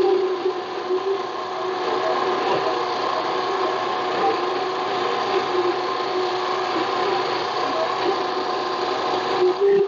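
Harbor Freight mini lathe running, a steady whine from its motor and gears, stopping abruptly near the end.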